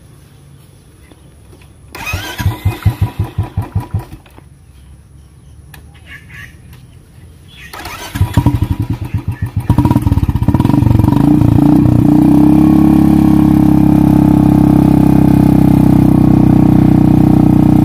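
Royal Enfield Bullet's single-cylinder engine being started. A first attempt about two seconds in fires in rhythmic pulses for about two seconds and dies; a second attempt about eight seconds in catches and settles into a loud, steady run.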